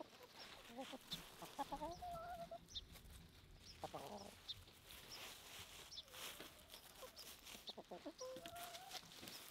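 Chickens clucking quietly, short calls in small clusters scattered through.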